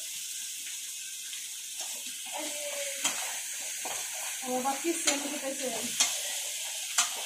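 Vegetable pieces frying in hot oil in a metal pan, sizzling steadily as a metal spatula stirs them, with several sharp clinks and scrapes of the spatula against the pan.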